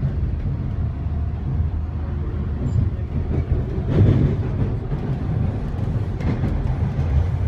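Rumble of a T1 subway train running through a tunnel, heard from inside the car, with wheels on the rails and a louder swell about four seconds in.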